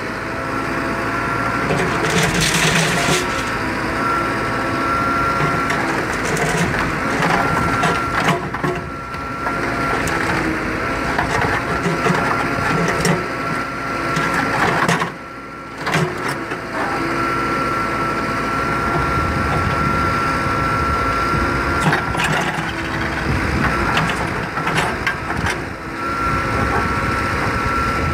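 JCB 3CX backhoe loader's diesel engine running, with a high hydraulic whine that comes and goes as the backhoe arm and bucket work, and scraping and knocking of steel rebar bundles against the bucket.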